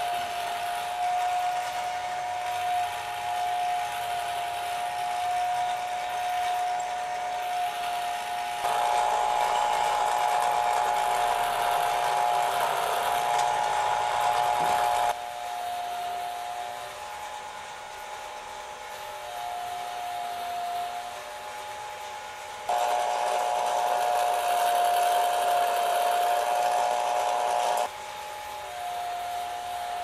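Erector set merry-go-round model running: its small electric motor and gear train give a steady hum-like whine. The sound jumps abruptly louder about a third of the way in, drops back about halfway through, and is louder again for a stretch near the end.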